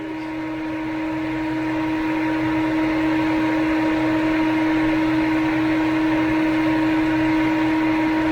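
Steady mechanical hum with one constant tone, fading in over the first few seconds and then holding steady: the Jeep's engine running while it warms up for a coolant check.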